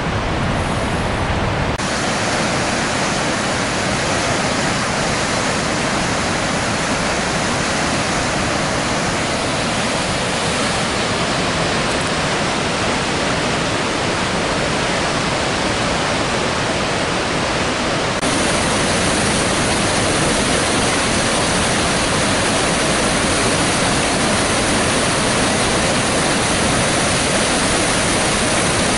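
Steady rush of whitewater at flood-level high water pouring through the rocky Cascades canyon. It turns a little louder and brighter about two-thirds of the way in.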